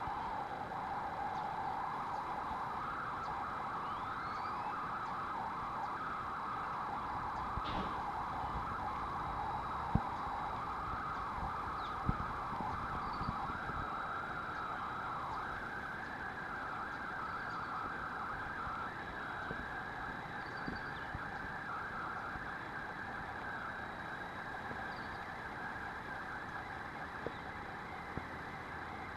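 A steady chorus of buzzing insects in tropical vegetation, its pitch wavering slightly and rising a little about halfway through, with a few faint short chirps and a couple of soft clicks.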